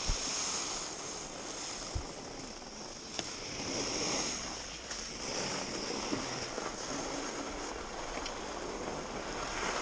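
Skis sliding and scraping over groomed piste snow: a rushing hiss that swells and fades, with a couple of short clicks about two and three seconds in.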